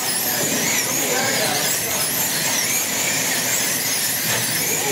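A pack of wing slot cars racing, their small electric motors whining high and sweeping up and down in pitch over and over as they accelerate down the straights and brake into the turns.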